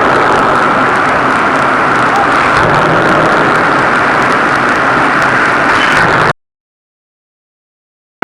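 Pneumatic forging hammer running: a loud, steady, hissing mechanical rush with no distinct blows, cutting off suddenly about six seconds in.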